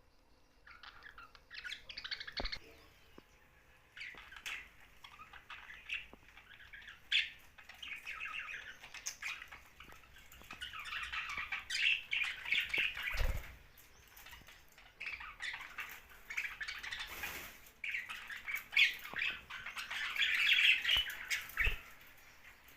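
Young budgerigars chirping and squawking in irregular bouts of chatter with short pauses between, and a few sharp clicks.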